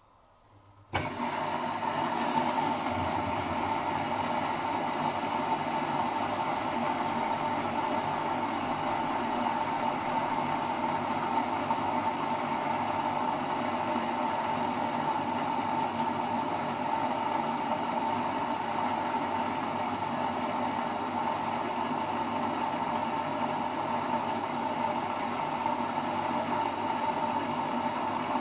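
Servis Automatic M3008B washing machine taking in water at the start of its first rinse: the inlet valve opens suddenly about a second in, then a steady rush of water runs into the drum.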